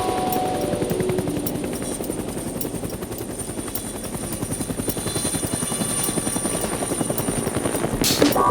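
Motorcycle engine running close by, a fast steady pulsing beat that swells a little in the second half. Music fades out in the first second.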